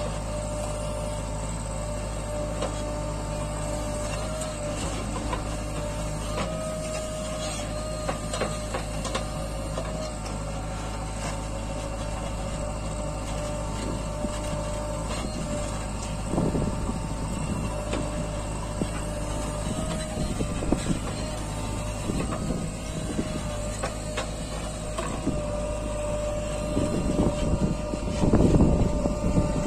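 JCB 3DX backhoe loader's diesel engine running steadily under hydraulic load as its rear bucket digs earth, with scattered knocks and clatter from the bucket and soil. A louder low rumble comes about two seconds before the end.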